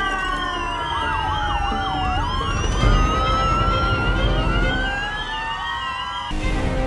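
Several police sirens sounding at once, overlapping: slow rising and falling wails, a fast high warble, and a quicker swooping yelp in the middle, over a low rumble. The sirens cut off suddenly near the end.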